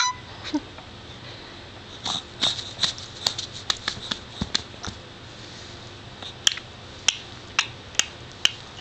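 Baby's mouth clicks, a long irregular series of short, sharp clicks about two a second, starting about two seconds in.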